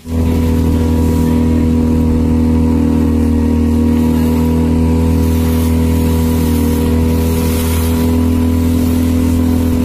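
Fishing boat's engine running steadily at constant speed, an even hum that cuts in suddenly at the start.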